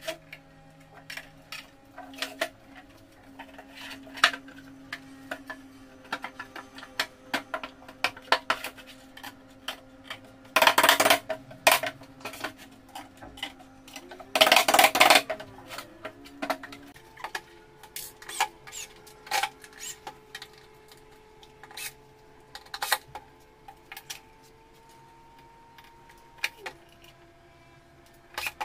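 Scattered clicks, taps and knocks of flat-pack furniture panels and small metal hardware being handled on a table during cabinet assembly. About a third of the way in and again around the middle come two louder bursts of noise, each about a second long.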